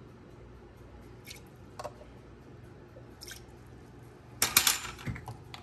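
Small handling noises from a metal measuring spoon and a glass vanilla extract bottle: a few faint clicks, then a brief, louder clatter about four and a half seconds in.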